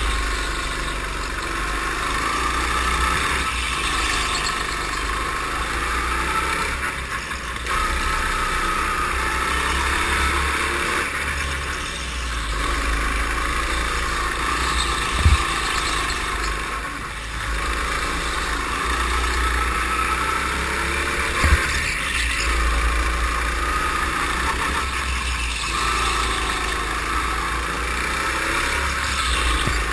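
Go-kart engine running under the driver, its revs rising on the straights and falling into the corners every few seconds. Two short low thumps stand out, about halfway through and again some six seconds later.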